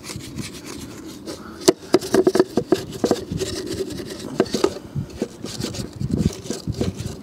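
Small hog's hair detail brush scrubbing around a caravan's plastic water inlet hatch, an irregular run of short scratchy brush strokes as dirt and green grime are worked out of the edges and hinge.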